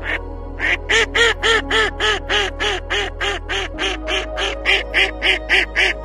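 A duck quacking in a fast, even series of short calls, about three a second, over steady background music.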